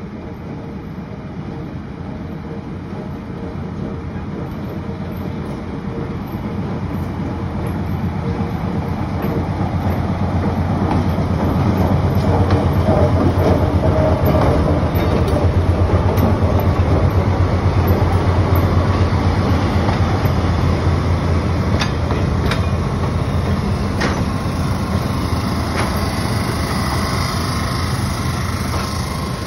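Diesel locomotive of a passenger train approaching and passing slowly, its engine running with a steady low drone that grows louder to a peak about halfway through and then eases as the coaches roll by. A few sharp clicks come near the end.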